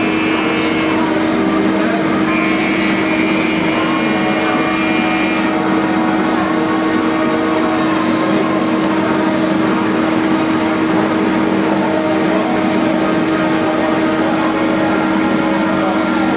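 CNC lathe running steadily while turning hardened forged steel with a CBN insert, a constant machine hum with a higher whine that comes and goes in the first five seconds or so.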